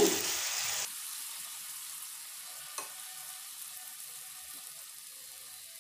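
Grated beetroot sizzling in ghee and water in a non-stick pan, stirred with a wooden spatula: a steady soft hiss, louder for the first second, with one light knock about three seconds in.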